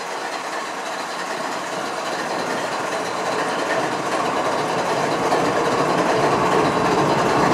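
Union Pacific diesel-electric locomotive idling with a steady mechanical hum, growing gradually louder.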